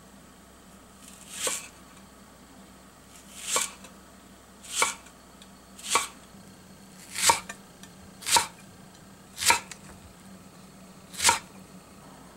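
Kitchen knife slicing a Japanese long onion (naganegi) on a wooden cutting board: eight separate cuts, roughly one a second with short pauses between, each swelling to a sharp peak as the blade goes through.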